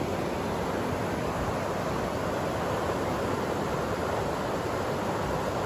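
Steady, even rush of a small mountain trout stream running fast over rocks and boulders.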